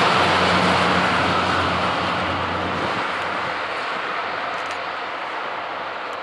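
Freight train of loaded car-carrier wagons rolling along the track, a steady wheel-on-rail rumble that fades as the train moves away. A low hum under it dies out about halfway through.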